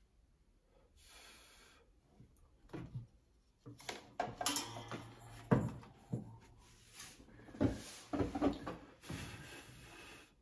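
Handling noises on a glass-topped desk: a run of knocks and clicks with rustling as a desk lamp is swung up and repositioned, the loudest knock about halfway through.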